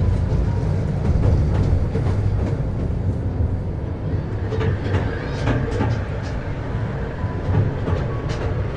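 Miniature park train riding along its track: a steady low rumble with irregular sharp clicks from the wheels on the rails.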